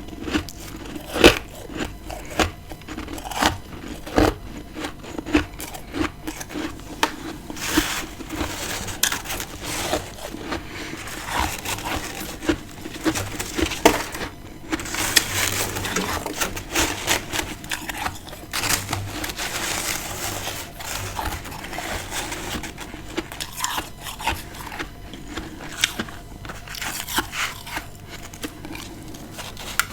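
Freezer frost being bitten and chewed close to the microphone: many sharp, crisp crunches, with a denser run of crackly crunching in the middle.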